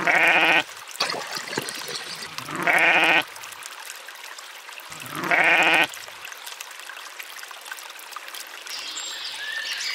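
A sheep bleating three times, each call about half a second long with a wavering pitch, over a steady trickle of water. Near the end, a bird chirps.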